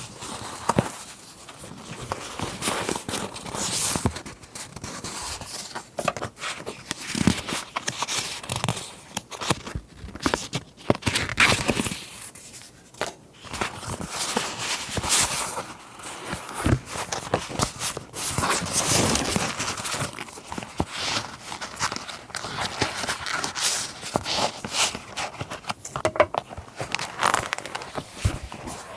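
Paper rustling and crinkling as journaling and scrapbook papers are handled, with irregular scratchy strokes and small taps.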